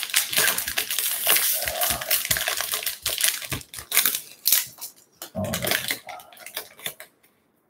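Foil wrapper of a Topps baseball card pack crinkling and tearing as it is ripped open by hand, a dense crackle of small clicks and rustles that eases off about five seconds in.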